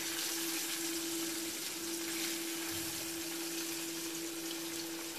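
Mirror carp pieces frying in hot oil in a pan, a steady sizzle, with a steady low hum underneath.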